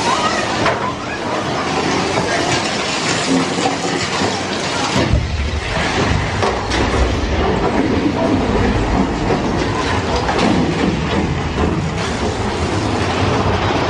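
Big Thunder Mountain Railroad mine-train roller coaster clattering along its track, heard on board. About five seconds in, a deep rumble comes in and stays under the clatter.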